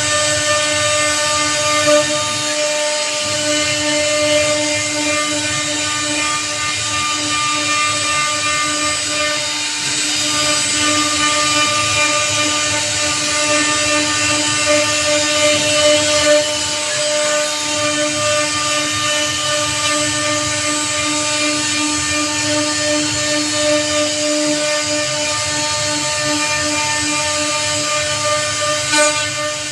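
CNC router spindle running at speed while its carving bit cuts into teak, a steady high whine with a row of overtones over a rough cutting hiss.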